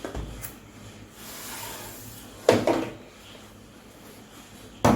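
Cardboard box being handled on a surface: a short scraping rub about a second in, then two sharp knocks, one near the middle and one at the end.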